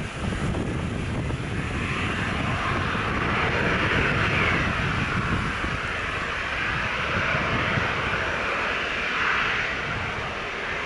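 Boeing 737-900ER airliner's CFM56-7B turbofan engines running at low taxi power as the jet taxis toward the listener: a steady rushing whine over a low rumble, growing louder about a second and a half in.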